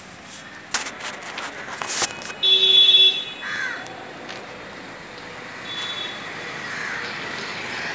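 Street traffic running steadily, with a vehicle horn sounding one short toot of under a second about two and a half seconds in, the loudest sound here. A few sharp clicks come in the first two seconds, and a fainter high tone sounds briefly near the end.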